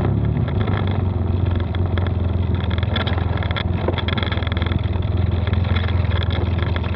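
Polaris side-by-side UTV's engine running steadily under throttle while driving, heard from a camera mounted on the roll cage, with a few short knocks and rattles from the vehicle.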